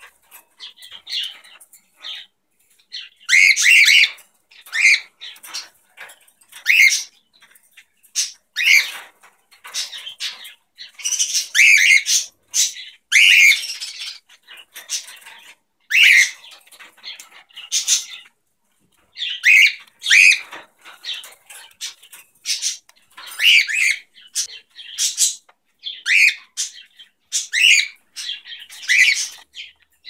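Cockatiel calls: short, shrill chirps and squawks repeated about once a second, with brief pauses between runs.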